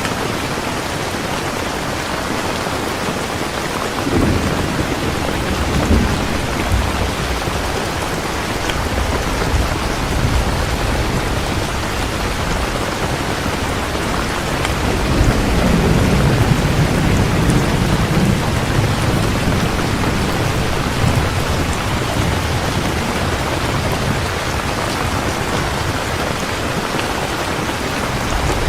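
Steady heavy rain with rolling thunder: a low rumble comes in about four seconds in, and a longer, louder roll swells in the middle and fades out.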